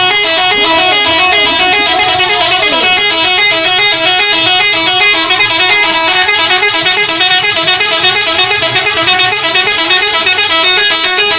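Indonesian 'telolet' multi-tone bus horn playing a fast melody of loud, stepping notes, breaking into a rapid pulsing trill for several seconds in the middle.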